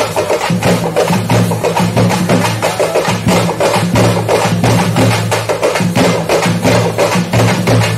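Fast traditional folk drumming for kavadi attam dancing: a rapid, even beat of sharp strikes, about five a second, over a steady low droning tone.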